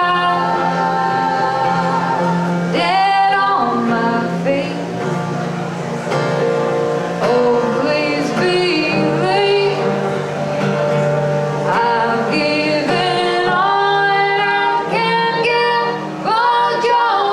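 All-female acoustic folk string band playing live, with women's voices singing long held notes in harmony over a steady low string tone.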